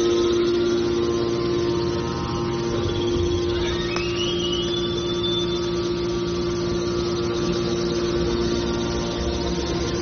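Hydraulic power unit of a scrap metal baler running: electric motors driving the hydraulic pumps give a steady hum, with a faint whine rising in pitch about four seconds in.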